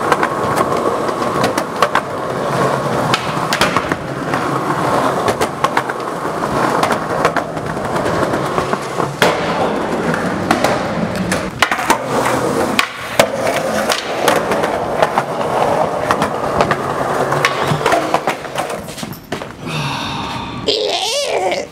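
Skateboard wheels rolling on concrete, cut by many sharp clacks of the board popping, landing and slapping the ground.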